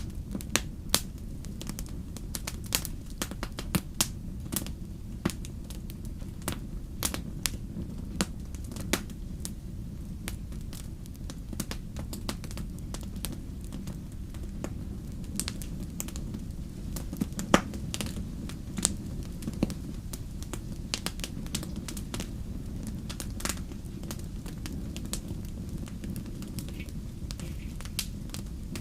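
Wood fire in a fireplace crackling: irregular sharp pops over a steady low rumble, with one louder pop about two-thirds of the way through.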